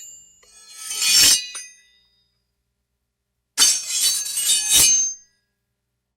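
Two separate sword sound effects: a metal blade sound that swells to a ringing peak about a second in and cuts off, then, after a couple of seconds of silence, a longer metallic scrape ending in a sharp ringing strike.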